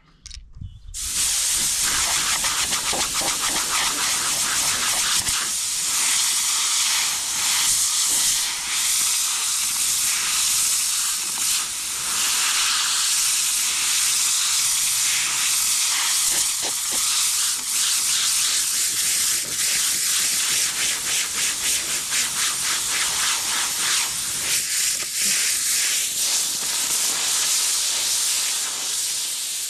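Compressed-air blowgun hissing as air is blown through a combine's engine air filter to clean the dust out of it. It starts about a second in, flutters in level as the nozzle moves, and cuts off just before the end.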